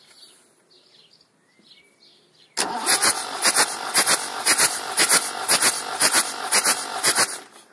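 Perkins 4.248 four-cylinder diesel of a Massey Ferguson 590 cranked on its starter motor for about five seconds, starting some two and a half seconds in and stopping near the end, with a rhythmic beat about twice a second. The engine is being turned over for a compression test of cylinder one, whose gauge builds to 25 bar (360 psi).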